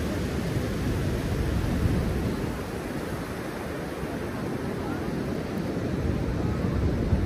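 Wind buffeting the microphone in an uneven low rumble over the steady wash of ocean surf.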